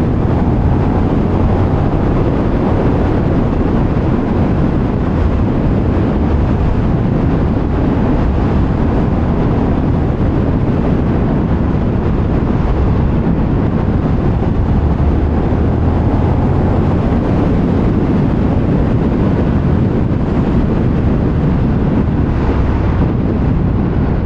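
Steady wind noise buffeting the camera microphone as a motorcycle is ridden at speed, with the KTM 1390 Super Duke R's V-twin engine running underneath.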